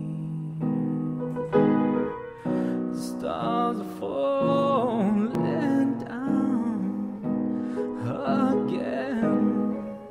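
Home demo recording of a song: piano chords struck every second or so, with a solo voice singing a sliding melody over them from about three seconds in until near the end.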